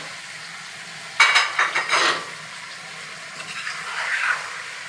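Wooden spoon stirring and scraping chopped tomatoes and chicken around a non-stick pan: a quick run of scraping strokes about a second in, softer stirring near the end, over a faint steady sizzle.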